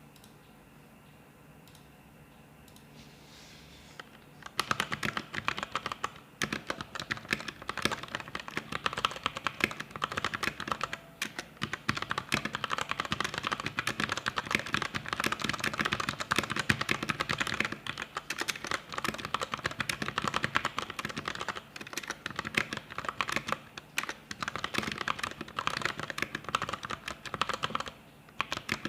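Typing on a Vortexseries VX5 61-key mechanical keyboard: a fast, dense run of keystroke clicks that starts about four seconds in, with a few brief pauses. It is a sound test of the keyboard.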